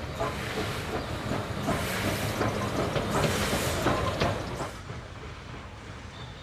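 Beyer-Garratt steam locomotive 6029 getting under way in a cloud of its own steam: a loud hiss of escaping steam broken by irregular exhaust beats, strongest about two and three and a half seconds in. Near five seconds in, the sound drops to a quieter, steady working sound.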